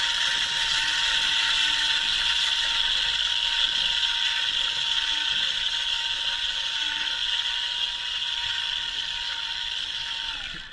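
Small electric motor and gearbox of a homemade radio-controlled model tractor running steadily, heard close up: a gear whirr with a thin steady whine. The whine falls and cuts off at the very end as the drive stops.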